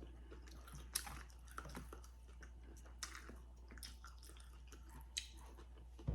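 Close-miked chewing of food, with scattered soft mouth clicks and smacks at a low level.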